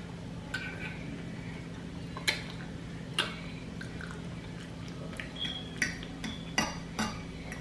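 Cutlery clinking against a plate during a meal: a handful of sharp clinks, a few with a brief ring, coming closer together in the second half.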